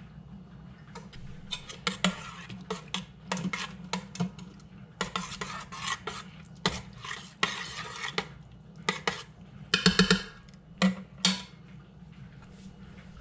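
A spoon stirring a wet cheese and egg mixture in a stainless steel cooker pot, scraping and clinking against the metal in irregular bursts of strokes, ending with two sharp knocks.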